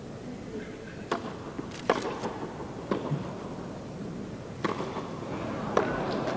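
A tennis rally: sharp pops of the ball off the racket strings and off the court, spaced irregularly, some close together, over a low crowd hush.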